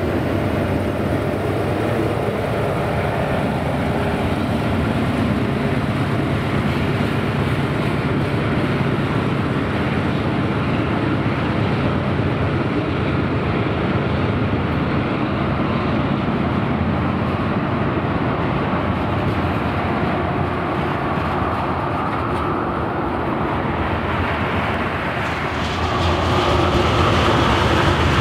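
Diesel locomotive passing close, an EMD SD50 with a 16-cylinder two-stroke engine, with its engine running, followed by a long string of loaded tank cars rolling past on the rails in a steady rumble. The train sound gets louder near the end.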